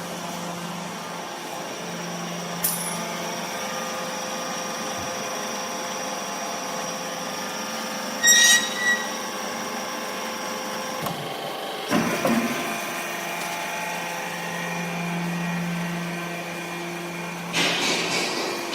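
MF125 scrap metal turn-out baler running, its hydraulic power unit giving a steady hum and whine. There are a few sharp metallic clanks and squeals, a change in pitch about twelve seconds in, and clattering near the end.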